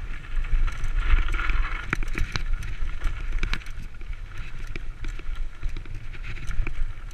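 Mountain bike riding fast down a rough dirt forest trail. A steady low rumble runs throughout, broken by frequent sharp rattles and clicks as the bike bounces over the ground.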